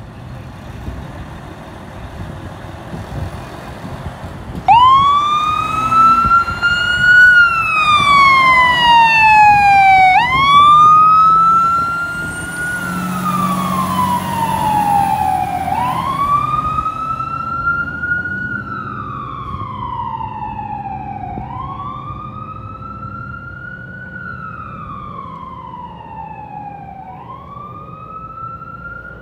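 Fire engine's siren sounding a slow wail, each sweep rising quickly and falling slowly, starting about five seconds in over the truck's engine rumble. The siren is loudest for the first several sweeps, then fades steadily as the fire engine drives away.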